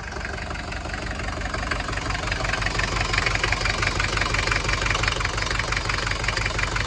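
Mercedes-Benz 240D's four-cylinder diesel idling with a steady, fast diesel clatter, growing a little louder over the first couple of seconds.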